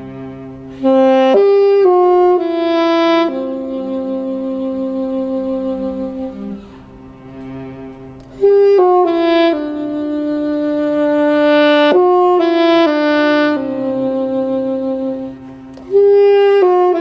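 Saxophone playing a slow melody over a cello's quieter sustained low notes. The melody comes in three phrases, about a second in, around eight and a half seconds and near the end, each stepping down a few notes and settling on a long held note.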